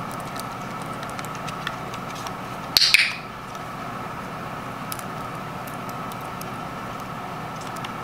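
A handheld training clicker clicks once about three seconds in, a sharp double snap of press and release that marks the parrot's rope pull as worth a treat. Otherwise a low steady room hum with a few faint ticks.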